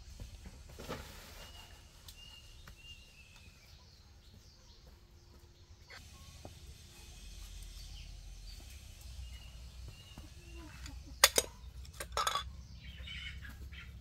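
Ceramic bowls and dishes clinking as they are set down on a banana leaf, with two loud sharp clinks near the end. A bird chirps softly a few times in the first few seconds.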